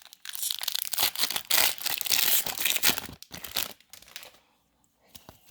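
Foil booster-pack wrapper crinkling and tearing as a Pokémon card pack is ripped open by hand. The crackling runs for nearly four seconds, breaks for a moment just past three seconds, then stops.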